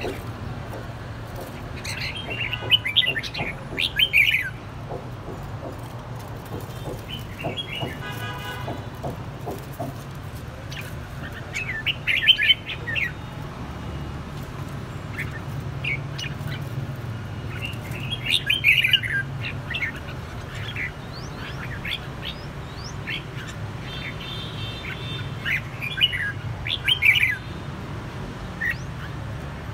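Red-whiskered bulbuls singing: short, loud bursts of chirpy song every several seconds, with single calls in between, over a steady low background hum.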